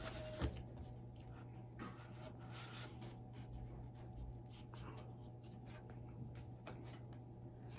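Fingers scratching and rubbing on a paper page of a picture book, a run of faint, irregular scratchy strokes, over a steady low hum.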